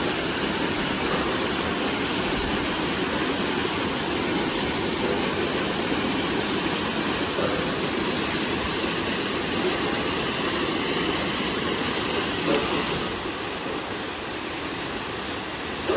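Mountain waterfall: a steady, loud rush of falling water, dropping a little in level about thirteen seconds in.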